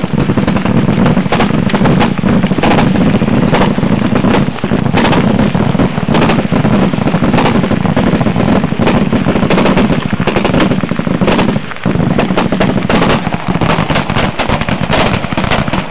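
Continuous rapid gunfire, the shots so close together that they run into one another with barely a pause, apart from a brief lull about twelve seconds in.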